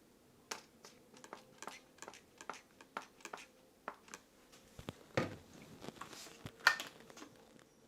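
Irregular light metallic clicks and knocks of hand-handled tooling on a milling machine, likely a drill bit being fitted and a chuck tightened, with one louder knock near the end; the spindle is not running.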